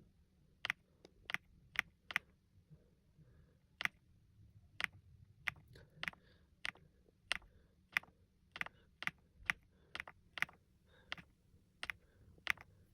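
Single keystrokes on the Kisnt wireless mechanical keyboard's pre-lubed linear switches, keys pressed one at a time at an uneven pace, roughly two a second, some in quick pairs.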